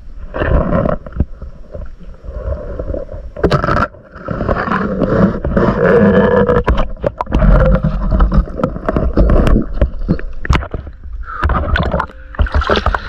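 Sloshing, gurgling water heard through a camera held underwater in a shallow stream, with frequent knocks and clicks as a spear and hands move against rocks. Near the end the camera comes up through the surface.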